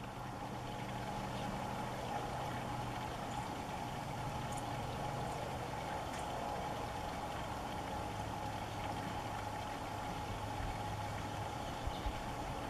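A steady low mechanical hum that holds level, with a few faint high ticks over it.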